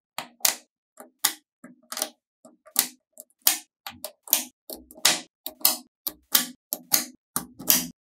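Small neodymium magnetic balls clicking sharply as rows of them snap down into place on a slab of magnetic balls: an irregular run of crisp clicks, about two or three a second.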